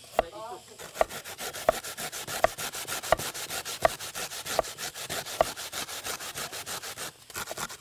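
A chef's knife rapidly chopping potato into matchsticks on a wooden cutting board, about nine strokes a second, with a brief pause near the end. A short pitched tone recurs about every three-quarters of a second over the chopping.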